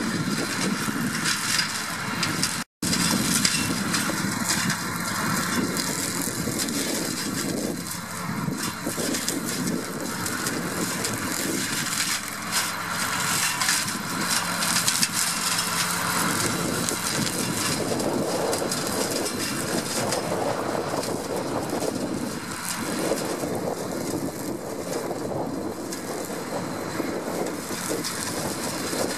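A New Holland 8360 tractor's six-cylinder diesel running steadily under load, driving a boom-mounted flail hedge cutter that crackles and clatters as it chops through hedge branches. The sound cuts out for an instant about three seconds in.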